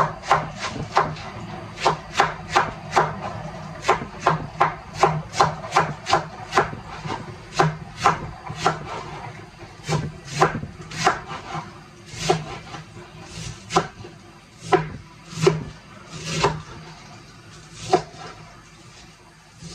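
Kitchen knife cutting slices off a head of cabbage held in the hand, a short crisp crunch with each stroke. The cuts come about two or three a second at first, then slow and space out, stopping shortly before the end.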